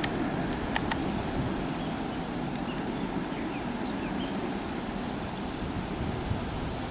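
Steady low rumble with wind noise on the microphone, two sharp clicks near the start and a few faint high chirps in the middle.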